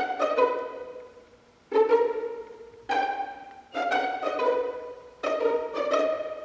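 Background music of plucked string notes, each starting sharply and fading, in a slow, uneven run of single notes and chords.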